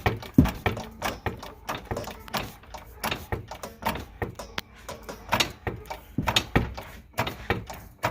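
Floor jack being pumped to lift a car: a steady string of sharp clicks and knocks, about two to three a second.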